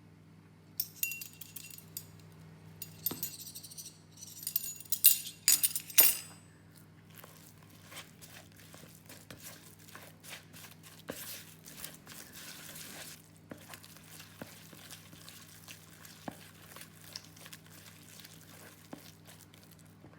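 Kitchenware clinking: a run of sharp, ringing clinks of glass or metal in the first six seconds, then lighter scattered taps and a brief scrape. A steady low hum runs underneath.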